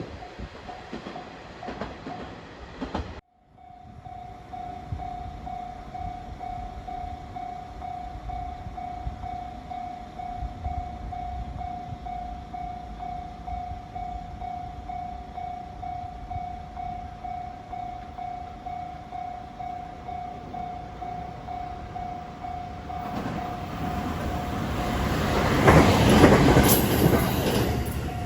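Japanese level crossing warning bell ringing in a steady repeating tone while a JR West 521 series electric train approaches and passes, loudest a few seconds before the end. Before an abrupt cut about three seconds in, the tail end of a passing train is heard.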